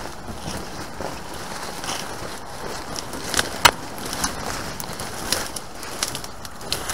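Dry leaves, twigs and brush crackling and snapping underfoot and under hand on a leaf-covered slope, with a run of sharp snaps, the loudest about three and a half seconds in.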